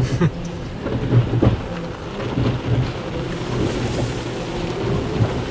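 Water and pre-soak solution spraying onto a car's roof and windshield in an automatic tunnel car wash, heard from inside the cabin, with a steady low rumble and a few short knocks.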